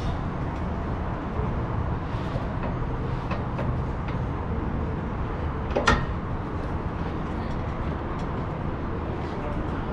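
Light metallic clicks from a hand working the steel roof basket's mounting clamp on the roof rail, with one louder clack about six seconds in, over a steady low rumble.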